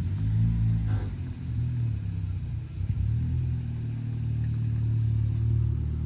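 Car engine running: a low rumble whose pitch rises and falls slightly.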